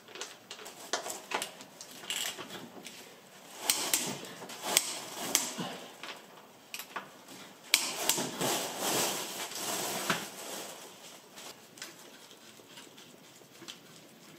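Irregular clicks, knocks and rustling of parts and tools being handled while the gear-change linkage is refitted, busiest in the middle and dying away near the end.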